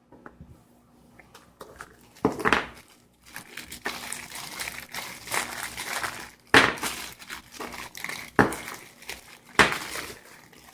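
Plastic wrapping crinkling and rustling as it is handled, with several sharp clicks and knocks.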